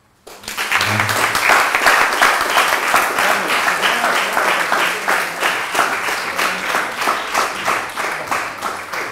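Audience applauding: dense, loud clapping that starts abruptly and slowly tapers off.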